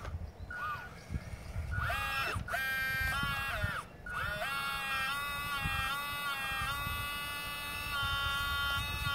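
Radio-controlled Cat 320 model excavator's electric motors whining as it digs. Several short whines rise in pitch and drop away, then from about four seconds in one long steady whine shifts its pitch in small steps.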